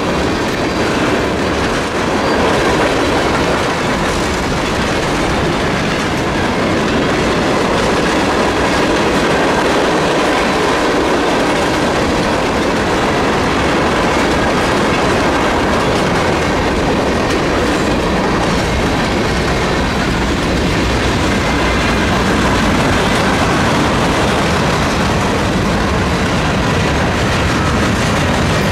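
Freight cars (tank cars, covered hoppers and gondolas) rolling past at speed: a steady, loud rush of steel wheels on the rails, with faint thin ringing tones over it.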